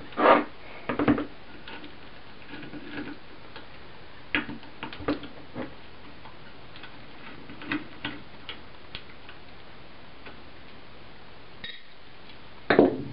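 Scattered clicks and knocks of a small hand driver and metal engine parts being handled on a plastic cutting board while the ignition coil's 3mm socket cap screws are undone and the coil is lifted off a small RC engine. The loudest knocks come just after the start, about a second in and near the end.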